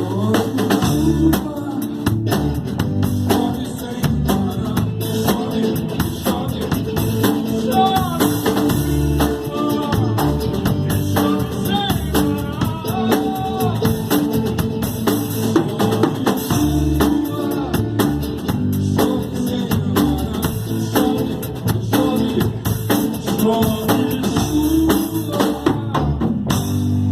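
Live band music: a drum kit keeps a steady beat under bass and melodic lead lines whose notes bend in pitch.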